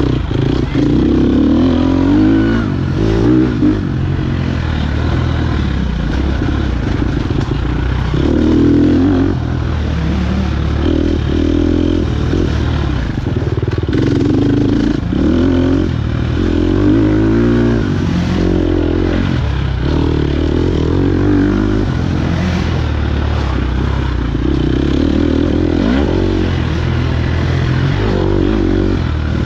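KTM 250 XC-F four-stroke single-cylinder dirt bike engine ridden hard off-road. Its note climbs and drops again and again as the throttle opens and the gears change.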